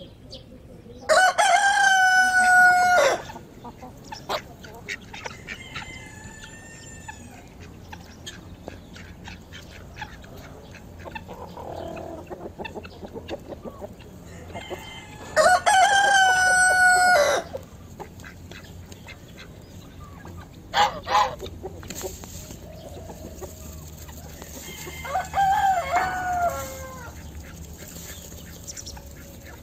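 A rooster crows loudly twice, each crow about two seconds long, a second in and again about halfway through. Hens cluck softly between the crows, and there is a shorter crowing call near the end.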